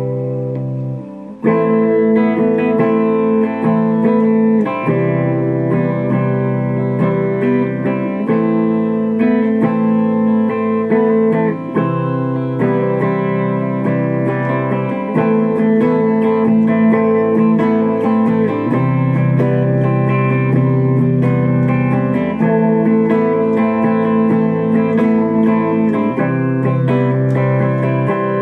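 Electric guitar played through effects pedals and an amplifier: an instrumental rock passage of sustained, ringing notes, the low notes changing about every three and a half seconds. A brief break about a second in, then the playing comes back in.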